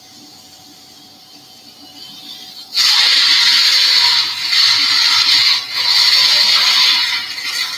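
Surgical suction running in the open wound: a loud, steady hiss that starts suddenly about three seconds in and drops out briefly twice.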